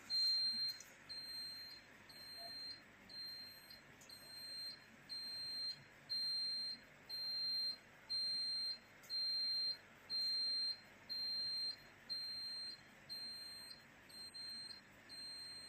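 Electronic alarm beeping: short, high-pitched beeps of one steady tone, repeating evenly about once a second.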